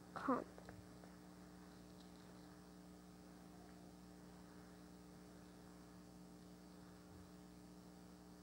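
Near silence with a faint steady hum throughout; one spoken word right at the start.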